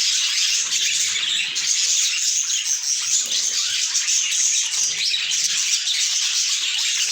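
Budgerigars chattering and chirping without a break, a dense high warble with scattered squawks.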